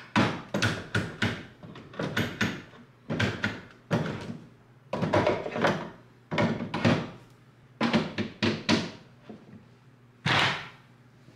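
Red Milwaukee cordless drills knocking and clattering against a plywood tool rack as they are slid into and lifted out of its slots. The knocks come in short clusters of sharp strikes, one cluster after another.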